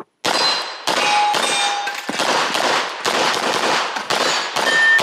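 Rapid string of 9mm pistol shots from a Glock 48, with steel targets clanging and ringing as they are hit, starting just after the start beep.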